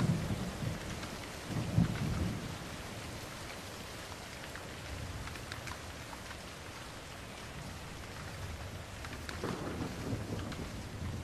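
Steady rain with rolling thunder: a low rumble dies away at the start, a brief rumble swells about two seconds in, and thunder builds again near the end.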